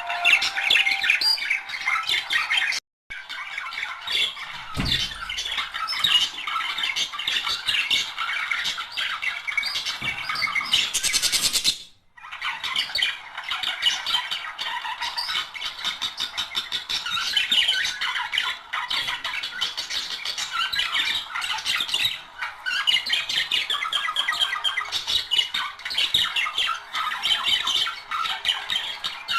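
A pair of budgerigars chattering and warbling continuously in fast, scratchy chirps: the budgie song used to stimulate breeding. The sound breaks off briefly twice, about 3 s and 12 s in.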